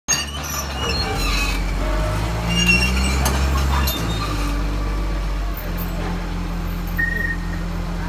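Komatsu D51PX bulldozer's diesel engine running under load as it tows a second bulldozer, its note shifting a few times, with metallic clinks and clanks during the first half.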